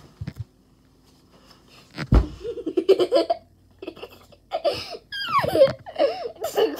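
A thud as a child lands on a bed about two seconds in, followed by children laughing and giggling in repeated bursts.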